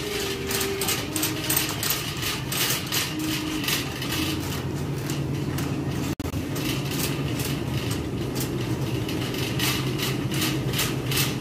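Wire shopping cart pushed along a store floor, its bad wheels rattling and clacking in a fast, uneven clatter.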